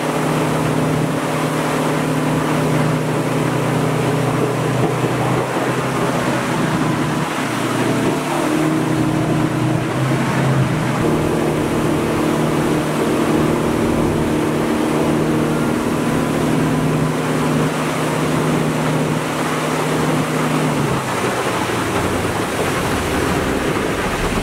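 Mercury 225 outboard running a 23-foot aluminium boat at planing speed, heard from inside the pilothouse, with water rushing along the hull under the engine note. The engine note shifts briefly about ten seconds in and drops away about three seconds before the end, leaving the water noise.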